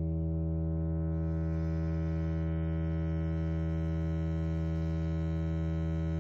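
Erica Synths Black Multimode VCF low-pass output filtering a steady low synth drone as the cutoff knob is swept. About a second in the filter opens and the tone turns brighter and buzzier as higher harmonics come through.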